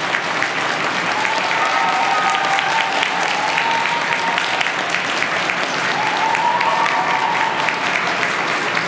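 Audience applauding steadily in an ice rink, with a few faint voices calling out over the clapping.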